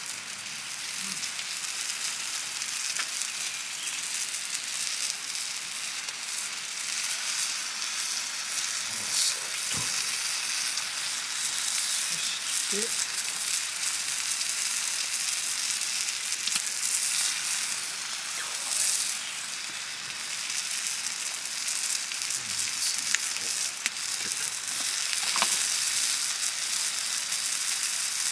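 Food sizzling on a hot iron griddle over a campfire: a steady frying hiss with a few small pops.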